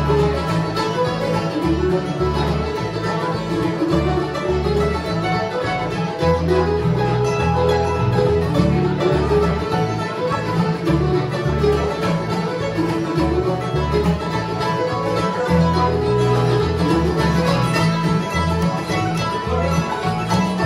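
Acoustic bluegrass band playing an instrumental tune live: upright bass walking under mandolin, acoustic guitar, five-string banjo and accordion.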